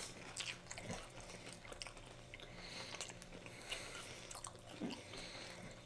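Two people chewing bites of a deep-fried apple pie roll with a crunchy cinnamon-sugar crust: faint, scattered crunching and mouth sounds. Near the end one of them gives a short hum.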